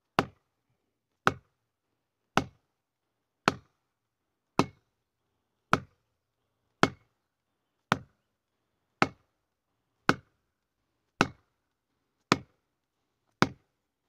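Thirteen evenly spaced blows, about one a second, driving an orange plastic felling wedge into the cut at the base of a tree to tip it over.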